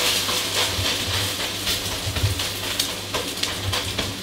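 Beaten egg sizzling in hot oil in a non-stick electric wok, with a steady hiss, while a wooden spatula stirs and pushes it about, giving short scrapes and taps against the pan.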